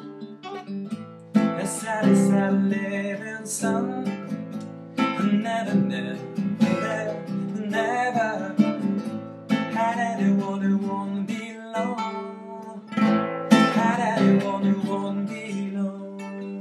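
Nylon-string classical guitar played in a folk style, with a man's voice singing a melody over it in phrases.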